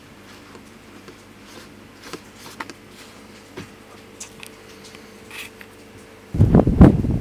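Quiet room with a faint steady hum and scattered soft clicks and paper rustles from a paper target being handled. Near the end it cuts abruptly to loud, gusty wind noise on the microphone.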